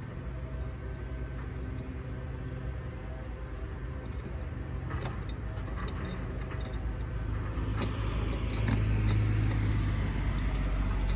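A vehicle's low rumble, swelling to its loudest about eight to ten seconds in, with light clicks and clinks from about five seconds in as a flood light fixture is handled.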